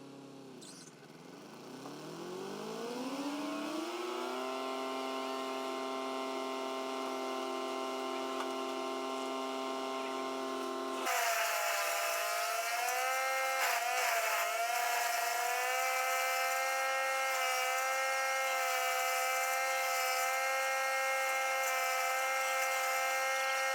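Gasoline chainsaw throttled up and held at high revs. About eleven seconds in the sound changes abruptly to a higher, harsher running note, which dips briefly in pitch a few seconds later as the saw takes load in the wood.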